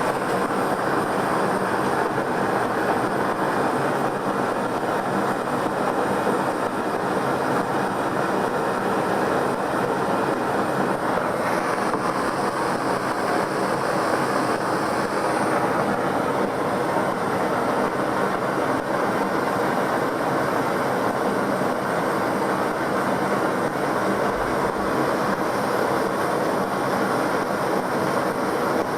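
Gas torch flame burning steadily against a fireplace insulation board in a heat test, an even, unbroken roar.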